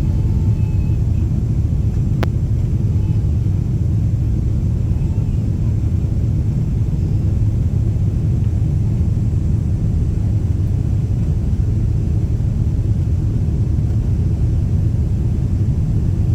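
Steady low rumble of an airliner's cabin noise in flight, with one faint click about two seconds in.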